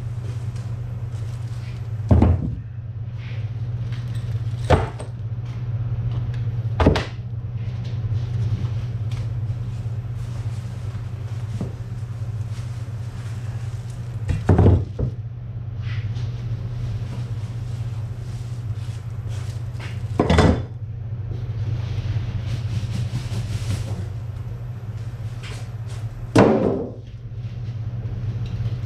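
Handling knocks and clunks, about six of them several seconds apart, over a steady low hum.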